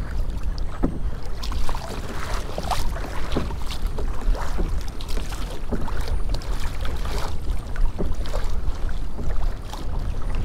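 Choppy water splashing and slapping irregularly against the hull of a pedal kayak under way, over a steady low rumble of wind on the microphone.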